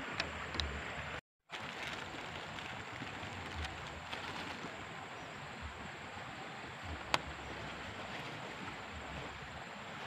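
Steady rushing of water, with a few light handling clicks from a plastic bottle and a backpack; the sound drops out completely for a moment just after a second in, and one sharp click comes about seven seconds in.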